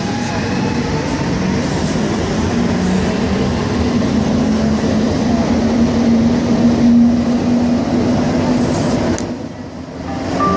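Inside a rubber-tyred Azur metro car running through a tunnel: steady running noise with a low motor hum. The noise drops briefly near the end.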